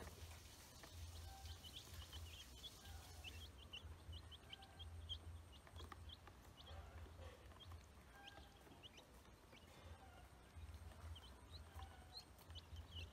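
Ducklings and chicks peeping while they feed: a steady scatter of short, high, faint peeps over a low rumble.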